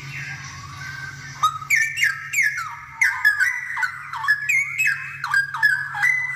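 Straw-headed bulbul singing: soft warbling, then from about a second and a half in a loud, rapid run of rich whistled notes that slur up and down. A steady low hum runs underneath.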